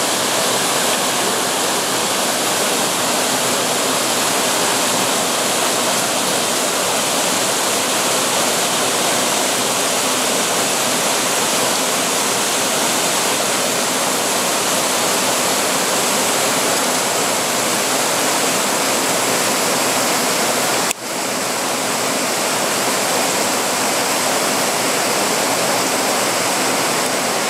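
Water cascading in small waterfalls over rock: a steady, full rushing. It drops out once for an instant about three quarters of the way through.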